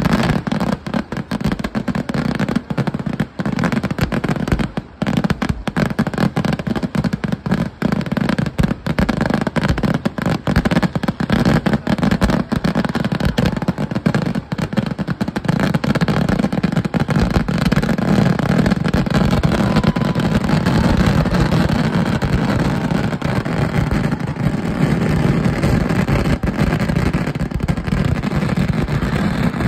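A firework display's barrage of firecracker explosions. Dense, rapid cracks run through about the first half, then merge into a continuous heavy rumble for the rest.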